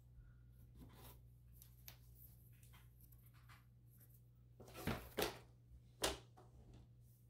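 Picture frames being handled by hand: soft rustling and scraping, then two louder scrapes about five seconds in and a sharp knock about a second later.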